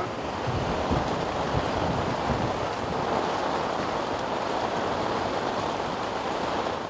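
Heavy rain and wind beating on the fabric of a tent during a severe thunderstorm, heard from inside as a loud, steady noise. Low buffeting thuds come in the first couple of seconds as gusts shake the tent.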